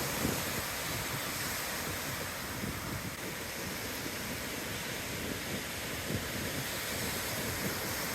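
Ocean surf breaking and washing onto a sandy beach: a steady, even hiss of waves.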